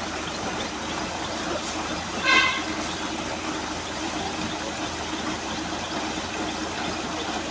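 A short vehicle horn toot about two seconds in, over a steady rushing noise.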